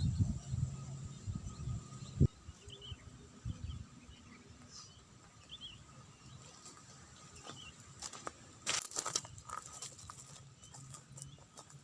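Quiet outdoor ambience with faint short bird chirps. A low rumble fades over the first two seconds, and a burst of sharp crackling clicks comes about eight to ten seconds in.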